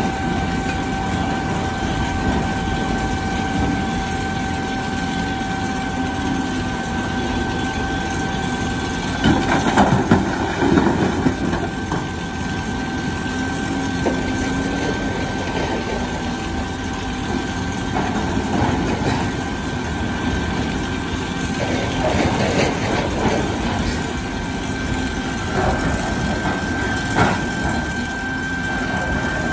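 Volvo crawler excavator's diesel engine running under working load, its pitch rising and falling as the hydraulics move, with a steady high whine. Rough bursts of rock clattering about nine seconds in and several times later, as the bucket digs and loads stone.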